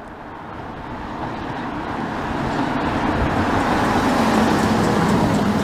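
Opel estate car approaching and passing close by, its engine and tyre noise growing steadily louder.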